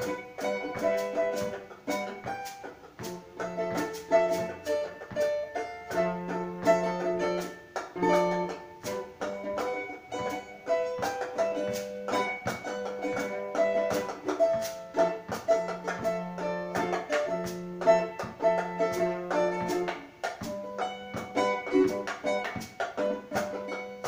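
Live acoustic instrumental music: quick plucked string notes over a low held drone note that stops and restarts every second or two.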